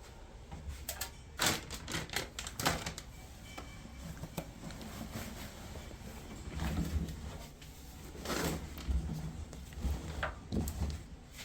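Clothes being loaded by hand into a front-loading washing machine drum: irregular rustling of fabric with scattered soft knocks and clicks.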